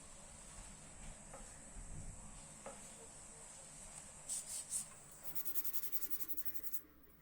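Abrasive hand rubbing on the knife, scratchy back-and-forth strokes as in sanding or scrubbing. A few light scrapes come first, then a short cluster of three, then a fast run of strokes from about five seconds in that stops abruptly near the end.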